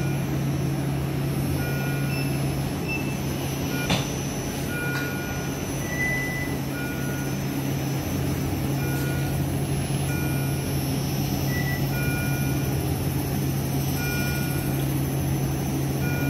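Short electronic beeps from patient monitors, at a few different pitches every second or two, over a steady low hum of room equipment. There is one sharp click about four seconds in.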